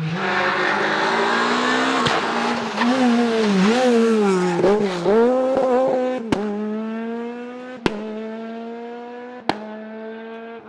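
Rally car engine at high revs passing close, with a loud rush of tyre and wind noise over the first few seconds and the revs wavering up and down. It then holds a steadier note and fades as it pulls away, with three sharp pops about a second and a half apart.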